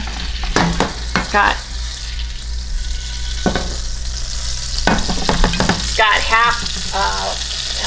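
Half bacon grease, half butter sizzling in a hot frying pan: a steady frying hiss, with a few sharp clicks of utensils or cookware.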